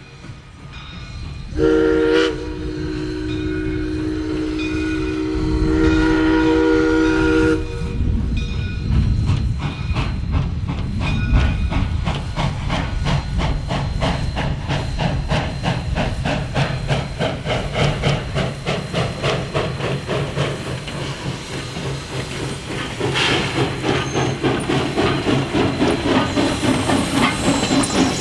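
Steam whistle of a 1920 Baldwin 0-6-0 steam locomotive blowing one long blast of several tones for about six seconds, starting about a second and a half in. The locomotive then works its train with a steady, even run of exhaust chuffs and hiss, which grows louder near the end.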